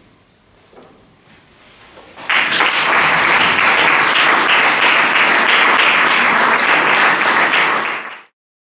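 Audience applauding, bursting in suddenly after about two seconds of quiet and holding steady until it cuts off abruptly near the end.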